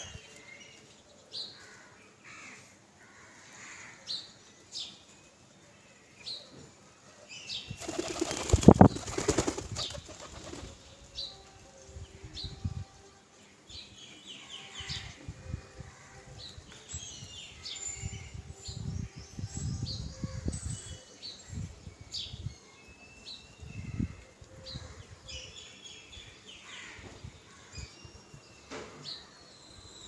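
Domestic pigeon flapping its wings while perching on a hand, with a loud flutter of wingbeats about eight seconds in and a run of soft low thumps afterwards. Small birds chirp faintly in the background.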